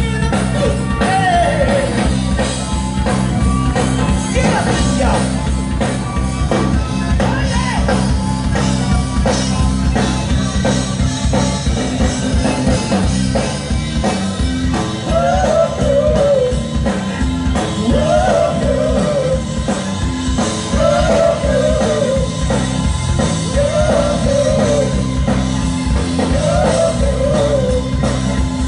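Live rock band playing loud with a lead singer, heard through the venue's PA from within the crowd. From about halfway through, a short rise-and-fall melodic phrase repeats about every three seconds.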